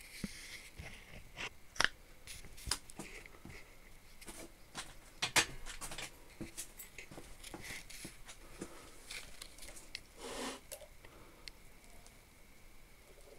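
Hands handling a homemade wire-brush spindle: scattered light clicks and knocks of metal parts, with a short rustling scrape about ten seconds in. The spindle has no motor yet, so it is not running.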